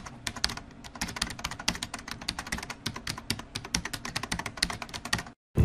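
Typing sound effect: a fast, irregular run of keyboard key clicks, stopping abruptly near the end.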